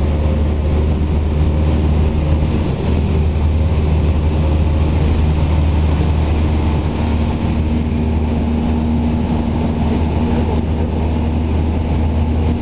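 Cessna light airplane's piston engine and propeller droning steadily in flight, heard from inside the cabin as a loud, low, even hum. The engine's tone shifts slightly about halfway through.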